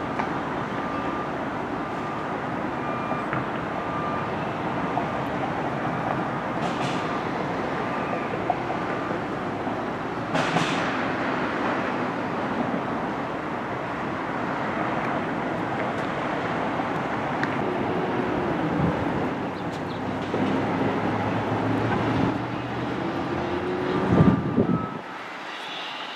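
Steady rumble and rattle of a moving train, with a few clicks, a louder clatter near the end, then the sound drops away suddenly.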